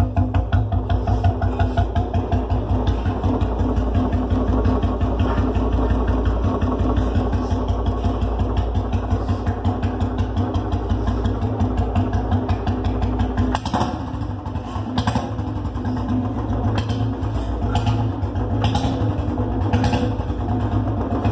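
Royal Enfield Bullet single-cylinder engine running through a new aftermarket silencer with an even firing beat. About two-thirds of the way through the engine note drops, and several sharp pops crack from the exhaust at uneven intervals, the cracker-like popping the silencer is fitted for.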